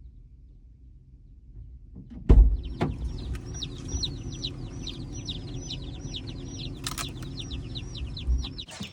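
Baby chicks peeping: a fast, unbroken run of short, high, falling peeps, several a second. The peeps start about two seconds in, right after a loud knock and a second, smaller one, over a low rumble.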